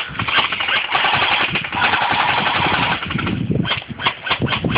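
Airsoft electric gun firing full-auto: a rapid, buzzing stream of shots for about three seconds, then several separate shots or clicks.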